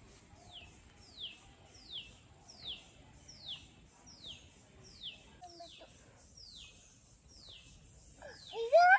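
A bird calling over and over, a single high note falling in pitch about every three-quarters of a second. Near the end, a child's voice gives a short, loud, rising cry.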